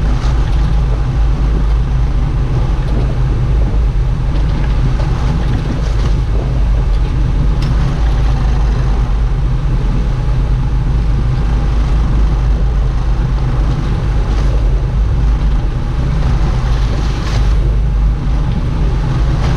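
Fishing boat's engine running steadily, a loud, even low drone.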